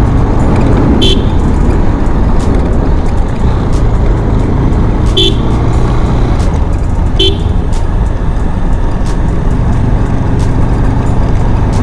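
Motorcycle riding at road speed: steady engine and wind noise, with three short horn beeps, about a second in, about five seconds in and about seven seconds in.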